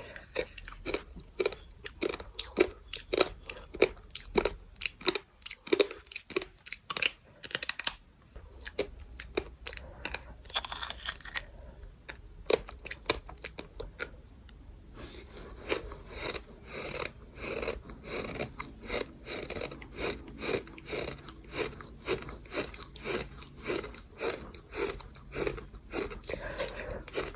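Close-miked gritty crunching of sand being chewed, in quick even crunches about two to three a second. The chewing thins out for a few seconds in the middle, with a brief rustle, then picks up again.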